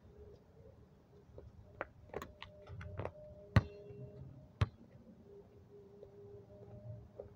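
Basketball dunk attempt on an outdoor court: a quick run of sharp knocks, then a loud impact with brief ringing about three and a half seconds in and another sharp knock about a second later.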